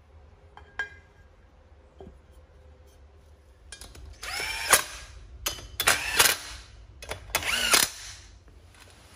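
Cordless drill/driver running in short bursts, its motor pitch rising quickly each time, as it drives in the valve cover screws after the gasket maker has been applied.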